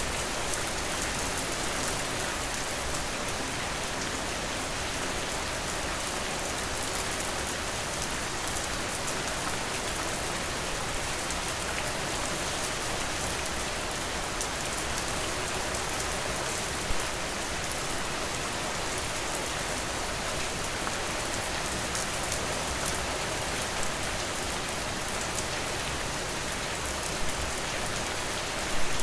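Steady rain falling, an even hiss with no let-up, and a few brief louder ticks or pops standing out from it now and then.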